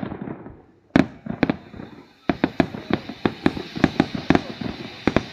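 Fireworks exploding: two sharp bangs about a second in, a short lull, then a rapid run of bangs, several a second.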